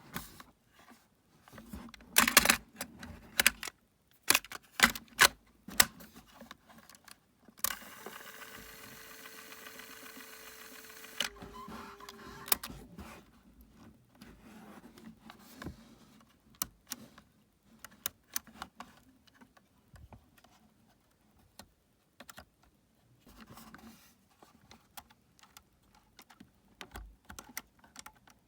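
A portable cassette recorder being handled: a series of sharp mechanical clicks and clunks, like piano-key buttons and the cassette door. About eight seconds in, a steady motor hum with tape hiss runs for roughly four seconds, drops slightly in pitch and stops, much like the tape being wound.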